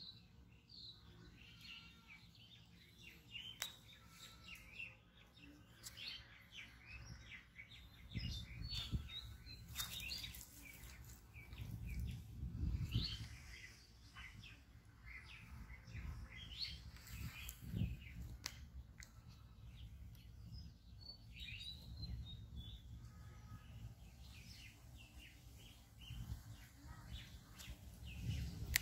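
Small birds chirping and calling, many short chirps, with a low rumble that swells now and then.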